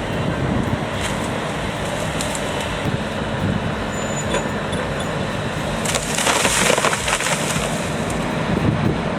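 Heavy wood-processing machinery running steadily, with a loud burst of wood crunching and splintering about six seconds in.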